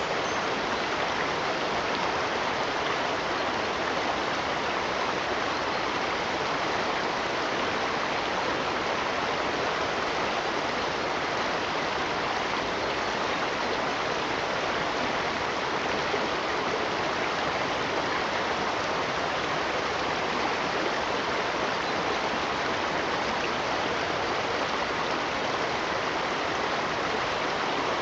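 Running water rushing steadily without a break.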